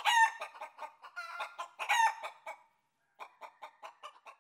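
Chicken clucking rapidly, with a loud squawk at the start and another about two seconds in; the clucking pauses briefly near the three-second mark, then resumes.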